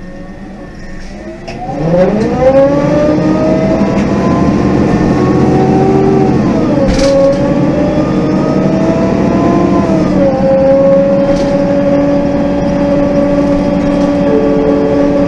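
MAN NG 273 M18 articulated bus's LPG engine pulling away, heard from inside the bus. About a second and a half in the engine revs up and its pitch climbs. The pitch drops twice as the Voith automatic gearbox shifts up, then it settles into a steady run.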